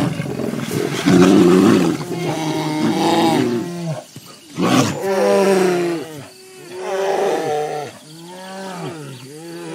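Two Eurasian brown bears fighting, growling and roaring: loud rough roars in the first seconds, a short loud blast a little before the middle, then a series of separate calls that rise and fall in pitch.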